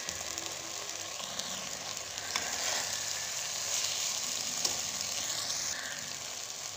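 Rice, green peas and whole spices sizzling as they fry in an aluminium pressure cooker, stirred with a metal slotted spoon. The sizzle swells for a few seconds in the middle while the mixture is turned over, with a few light clicks.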